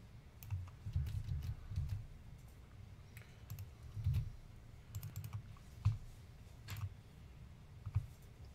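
Typing on a computer keyboard: scattered, irregular key clicks with dull knocks.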